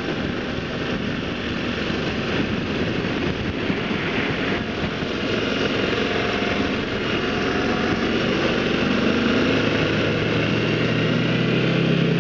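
Motorcycle engine pulling away and accelerating, its pitch rising gradually as it gets louder, under a rush of wind noise over the microphone.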